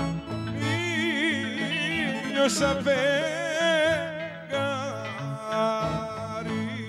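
Live Greek folk dance music: a singer with wide vibrato and clarinet over a moving bass line.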